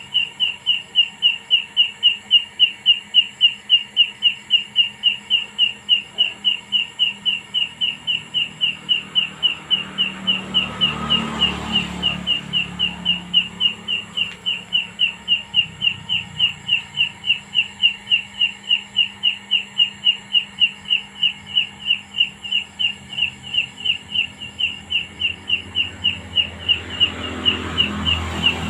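Rhythmic high-pitched chirping, about three short chirps a second at one steady pitch, kept up without a break by an unseen caller hidden in a jackfruit tree, which the searcher guesses is a grasshopper-like insect. A low rumble swells in briefly about ten seconds in and again near the end.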